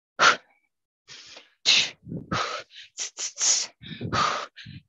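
A boxer's sharp, hissing exhalations, one short puff of breath with each punch thrown while shadowboxing: about ten quick puffs in an irregular run.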